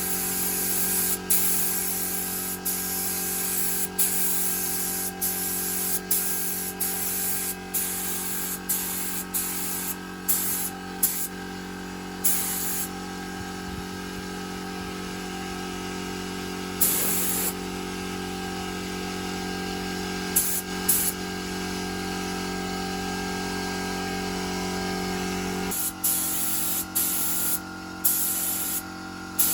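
Compressed-air spray gun hissing in short repeated bursts as it is triggered on and off, over the steady hum of a running motor.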